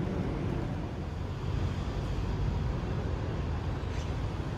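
Steady low rumble of outdoor city background noise: distant road traffic.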